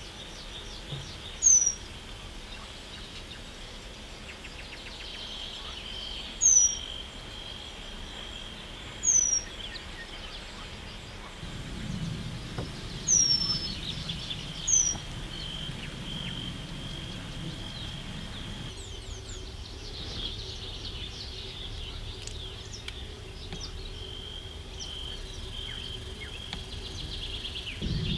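Eurasian penduline tit calling: five thin, high whistles, each sliding downward, a few seconds apart. Under them runs steady outdoor background noise with a faint, broken high tone.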